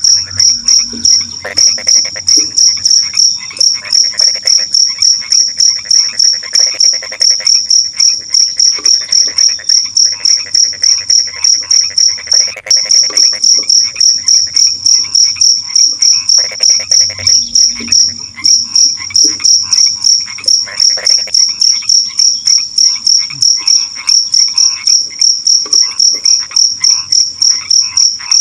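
Crickets chirping in a loud, high, evenly pulsed chorus at several chirps a second. Underneath, other night animals call in short rattling trains that come and go every second or two.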